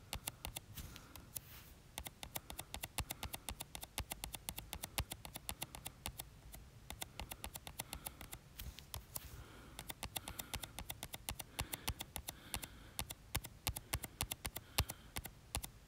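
A fingertip tapping rapidly and repeatedly on a phone's touchscreen: many short, faint taps, several a second, toggling a follow button on and off as fast as possible.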